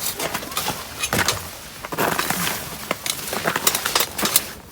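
Wood fire crackling, with irregular sharp pops and snaps that come thickest in the second half.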